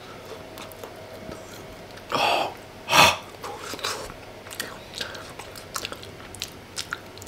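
A person chewing a mouthful of coal-roasted kumara (sweet potato), with many small wet mouth clicks. Two short, loud breaths about two and three seconds in.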